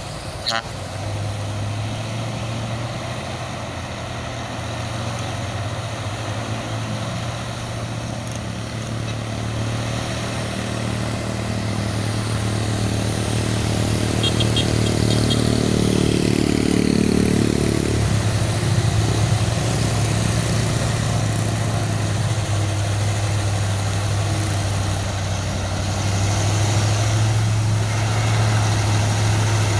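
Heavy vehicle engines running in slow traffic on a steep uphill road: a steady low engine drone, with a louder engine note building for several seconds in the middle.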